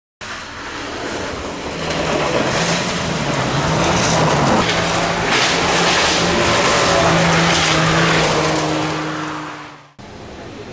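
Small front-wheel-drive rally car (JN5 class, 1.5 litres or less) driving hard on a gravel stage. The engine note dips and climbs with gear changes over the first few seconds, then holds high and steady with gravel noise as it goes by, and fades away before the sound cuts off. A second car's engine starts right after the cut.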